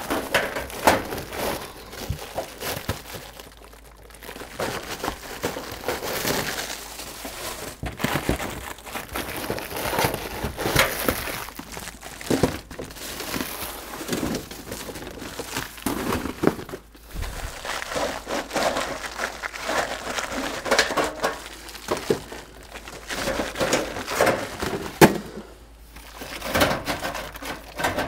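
Flexible aluminium-foil furnace ducts crinkling as they are twisted and pulled off the furnace's duct collars, with occasional sharp knocks from the handling.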